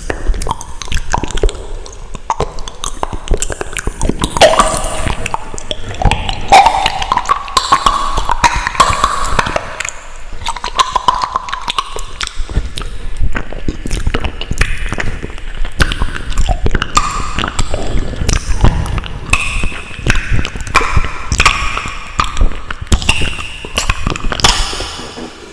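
Close-miked ASMR mouth sounds: a dense run of wet clicks and smacks. Stretches of a higher pitched tone run through the middle and near the end.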